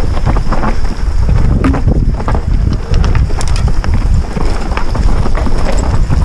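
Wind buffeting a helmet camera's microphone over the rumble of an Orbea Rallon mountain bike's tyres on a dirt trail at speed, with scattered clicks and rattles as the bike runs over stones and roots.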